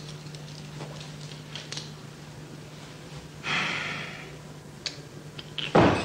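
Steady low hum under small clicks and rustles of handling. A short hiss comes about three and a half seconds in, and a loud knock near the end as a hand takes hold of a wooden door.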